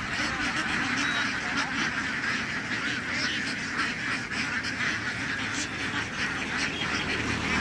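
A large flock of laying ducks crowded into a wire holding pen, many birds quacking at once in a continuous, even chorus.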